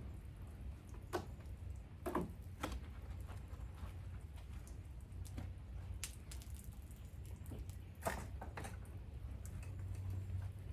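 Scattered wet squishes, drips and a few sharp knocks from washing a pickup truck by hand, over a low steady hum.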